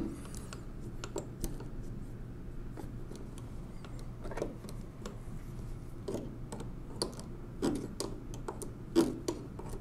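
Scattered small metallic clicks and taps as a nut is turned by hand off a lever screw on a 1920s Monroe Model K mechanical calculator, the loose steel parts knocking lightly against the frame. Faint steady hum underneath.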